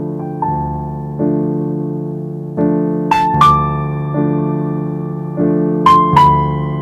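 Slow keyboard music on an end screen: sustained piano-like chords changing every second or so, with pairs of higher melody notes struck about three seconds in and again about six seconds in.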